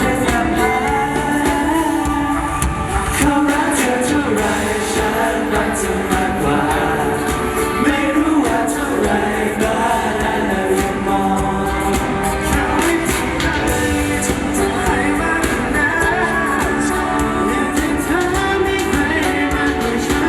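Live pop song with singing over a steady beat, played loud through a stage sound system.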